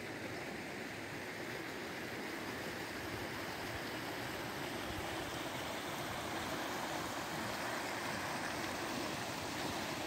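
Flash-flood water running down a desert wadi channel, a steady rushing noise that slowly grows a little louder.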